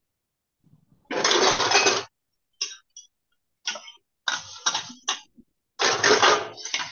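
Bursts of clattering household noise, like dishes being handled, coming over an unmuted participant's microphone on a video call. The longest burst is about a second in, and the others are shorter, each cutting in and out abruptly. The host takes this noise for people putting away dishes at home.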